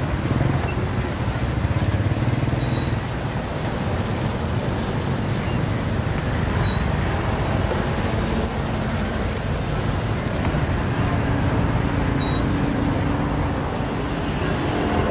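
Steady road traffic noise: the engines of passing vehicles make a continuous rumble with a shifting low hum.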